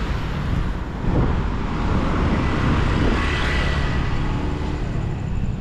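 Road traffic running steadily along the street, with a vehicle passing close by about midway.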